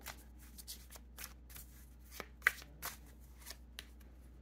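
A tarot deck being shuffled by hand: a string of soft, irregular card flicks and slides, about three or four a second, with one sharper snap about halfway through.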